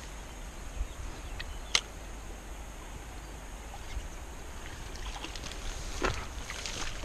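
Low, uneven wind rumble on the microphone with a few clicks from handling a spinning rod and reel, the sharpest about two seconds in.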